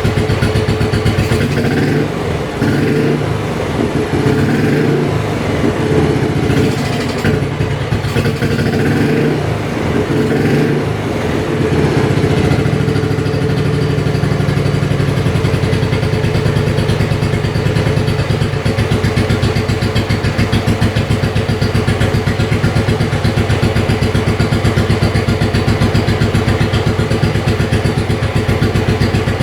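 1953 NSU Max 250's single-cylinder four-stroke engine running cold, its exhaust beating in quick even pulses. The revs rise and fall several times in the first dozen seconds, then it settles to a steady idle.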